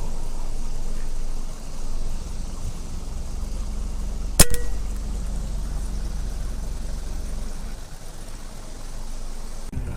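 A single sharp crack about four and a half seconds in, typical of a PCP air rifle firing, over a steady low rumble.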